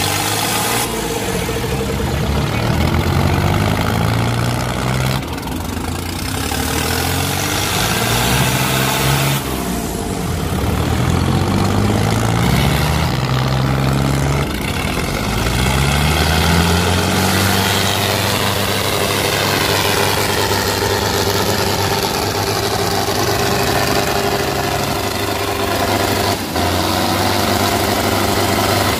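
Diesel engines of two farm tractors, a John Deere 5050 D and a Farmtrac 65, working hard under load in a tractor tug-of-war. They are revved up and let down several times, then held at steady high revs for the second half.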